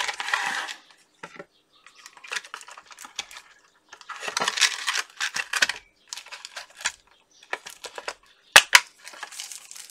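Unboxing handling noise: a cardboard box and plastic inner tray being slid, scraped and rustled, in short irregular bursts, with a sharp double click near the end.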